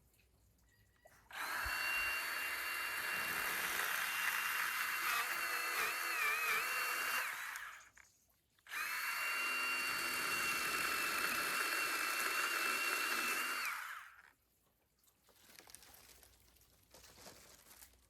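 A small electric motor runs at a steady high speed twice, for about six seconds and then about five, with a short pause between. Each run starts and stops cleanly.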